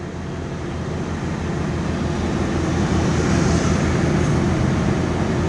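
Diesel engine of an overloaded log truck running under load, mixed with motorcycle engines close by. It is a steady, pulsing low rumble that grows a little louder over the few seconds.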